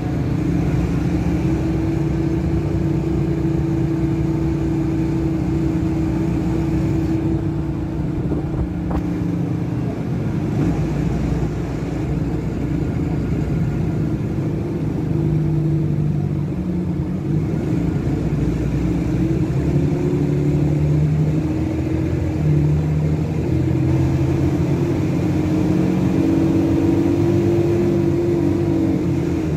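Rear-mounted Cummins ISBe 185 six-cylinder diesel of a Materfer BU1115LE city bus, heard from inside the passenger cabin while the bus drives. The engine note dips for a few seconds, then climbs and falls back in several steps.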